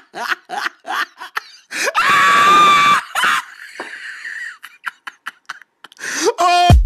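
Rapid bursts of laughter, then a loud high-pitched scream held for about a second, about two seconds in. A short rising sound with a quick rattle comes near the end.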